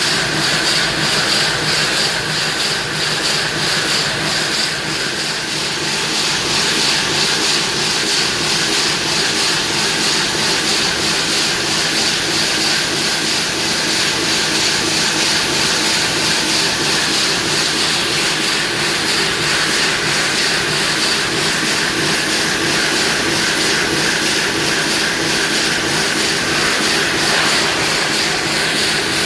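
Toksel Taurus-80 stone gangsaw running, its blade frame sawing through the block with a loud, steady, even noise.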